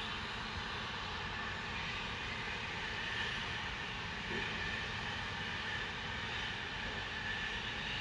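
Loud, steady industrial hissing from a factory, carrying across open ground, with a low rumble underneath.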